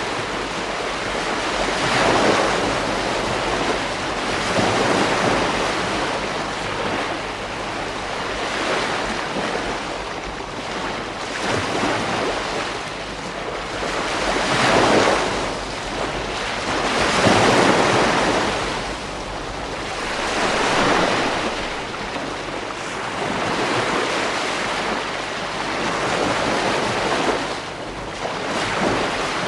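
Ocean waves breaking and washing up a beach, a steady surf that swells as each wave comes in every few seconds, with some wind on the microphone.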